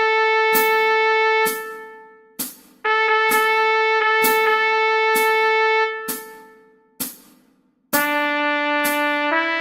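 Trumpet melody of long held notes on one pitch, each sustained for a few seconds and then dying away, over a steady percussive click on every beat. Near the end a lower instrument comes in with sustained notes that step up in pitch.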